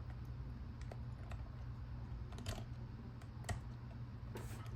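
Number wheels of a Master Lock wheel combination lock clicking as they are turned by hand, with a hook pick holding tension on the lock's internal rod to decode the combination by feel. Scattered, irregular small clicks over a faint steady low hum.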